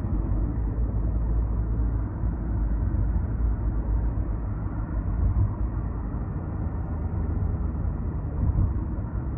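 Steady low road rumble of a car driving at speed, heard from inside the cabin.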